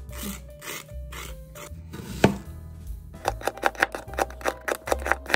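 A small plastic spoon scrapes the seeds out of a halved cucumber, then a sharp knock sounds about two seconds in. From about three seconds in, a chef's knife chops quickly through an onion onto a plastic cutting board, about five strokes a second.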